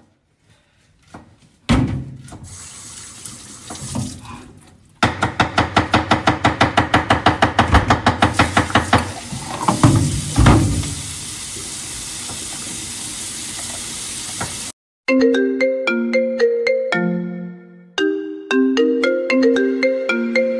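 Fast, even knife chopping on a wooden cutting board, about six strokes a second, followed by a kitchen tap running steadily into a stainless-steel sink. In the last third a mobile phone rings with a marimba-style ringtone tune.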